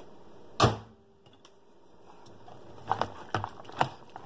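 A utensil stirring macaroni and water in a plastic Rapid Mac microwave cooker, clicking and knocking against the container's sides. There is one sharp knock about half a second in, then a quick run of clicks, several a second, over the last second or so.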